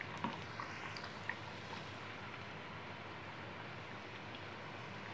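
Dough pastries deep-frying in hot oil: a steady sizzle, with a few sharp clicks in the first second and a half as a wooden spatula moves them in the pan.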